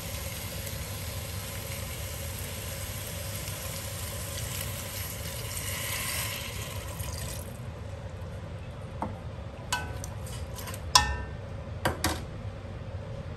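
Chicken and vegetables sizzling in a stainless steel pot, then liquid poured in with a swelling splash. The hiss stops suddenly about seven and a half seconds in, followed by a few sharp metallic clinks with a brief ring.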